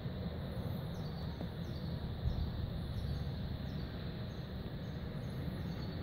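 Steady outdoor background noise with a low rumble, and faint high chirps repeating about two or three times a second.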